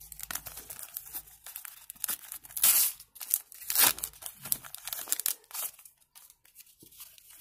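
A football sticker packet's wrapper being torn open and crinkled by hand, with two louder rips a little before and just after the middle and crackling handling throughout, fading near the end.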